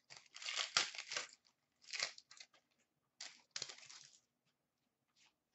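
Trading cards being handled and shuffled by hand: a handful of faint, short rustling and sliding bursts over the first four seconds, the longest lasting about a second.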